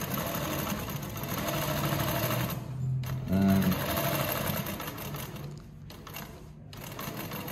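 Consew 146RB-1A-1 walking-foot industrial sewing machine stitching through four layers of heavy cotton, running in spurts: it stops briefly a little under three seconds in, starts again, and runs quieter after about five seconds.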